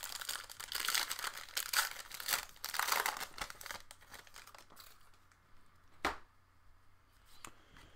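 Plastic trading card pack wrapper crinkling and tearing as it is torn open, for about the first three and a half seconds. A single sharp tap follows about six seconds in.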